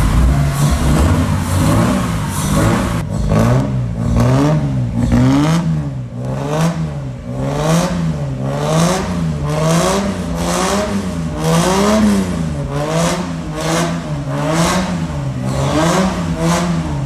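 Toyota 1JZ straight-six engine in an Altezza, revved repeatedly in quick throttle blips, its pitch rising and falling slightly faster than once a second.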